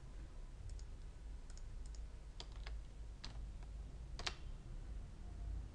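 Faint, scattered clicks of a computer mouse and keyboard, several separate clicks with the loudest a little past four seconds in, over a low steady hum.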